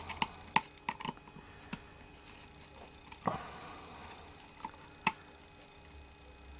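Scattered small clicks and ticks of a T5 Torx precision screwdriver working tiny screws out of a laptop hard drive's metal casing, with one louder click about three seconds in.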